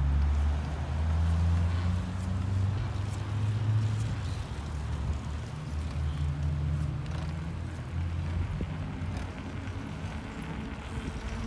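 A vehicle engine running at low, fairly steady revs, a deep drone that swells and eases a little.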